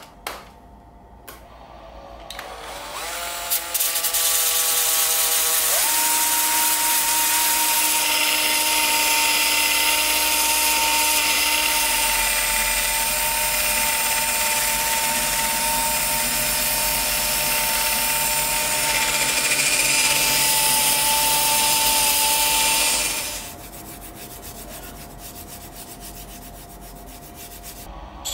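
Cordless drill spinning a hook-and-loop sanding disc against a wooden bowl turning on a lathe. A rising motor whine as it gets up to speed, then a steady whine over loud sanding hiss. Near the end the sanding stops, leaving a quieter steady machine hum.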